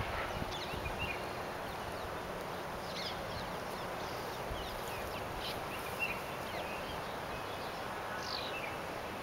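Steady outdoor background noise with short bird chirps scattered through it, a few seconds apart.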